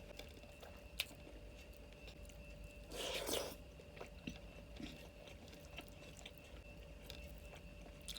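A person eating a plate of chicken, fried egg, daal and rice, with chewing and small mouth and food clicks. There is a sharp click about a second in and a louder, noisier burst of eating sound about three seconds in.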